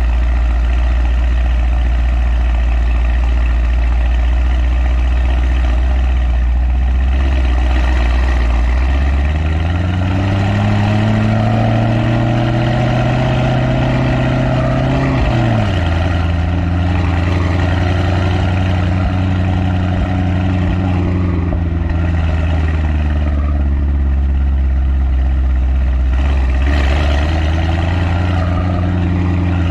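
Mercedes-AMG E63 S's M177 4.0-litre twin-turbo V8, with upgraded downpipes, an aftermarket intake, a tune and the exhaust flaps fully open, idling steadily, then revved slowly upward for about six seconds. The revs drop suddenly about halfway through and ease back to idle, with a slight rise again near the end.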